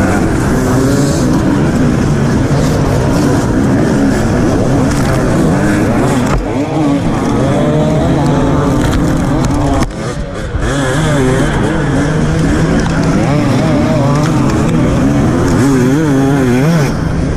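Dirt bike engine heard onboard from the rider's helmet camera, revving up and down continuously under throttle. The revs drop briefly about ten seconds in, then pick up again.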